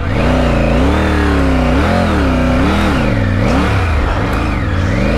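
Triumph Tiger motorcycle's three-cylinder engine pulling away from a standstill on a steep, loose gravel climb. The revs rise and fall over and over, roughly once a second, as the throttle is worked.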